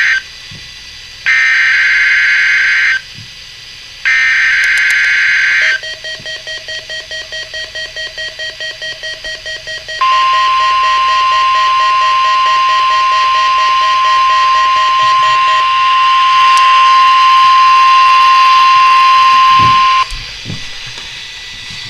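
NOAA Weather Radio Required Weekly Test signal: bursts of harsh, buzzing SAME digital header data, then a rapid pulsing beep of about five beeps a second for about four seconds. Then comes the steady 1050 Hz warning alarm tone for about ten seconds, which cuts off sharply.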